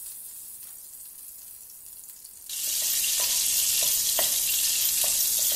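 Melted butter and cooking oil sizzling in a nonstick wok, faint at first and then loud and steady from about two and a half seconds in, with a few short scrapes and knocks of a wooden spatula stirring the fat.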